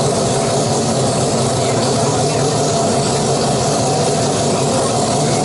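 Mazda 767B's four-rotor rotary engine running loud and steady, its pitch holding constant with no revving.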